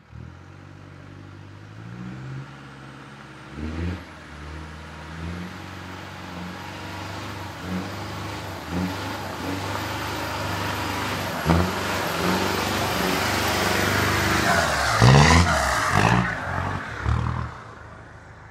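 Pickup truck engine pulling along a muddy dirt track, revving up in short bursts again and again. It grows louder as the truck approaches, is loudest as it goes by about 15 to 17 seconds in, then fades away.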